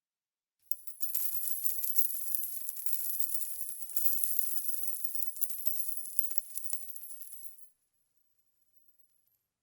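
Many metal coins clattering and jingling together in a dense, continuous cascade of fine clinks for about seven seconds, with a fresh surge about four seconds in, then cutting off, with a faint brief jingle near the end.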